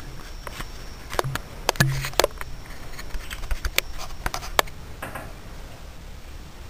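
Handling noise: irregular light clicks and taps, with a few sharper knocks in the first half, as a pistol crossbow and the camera are handled close over a cloth.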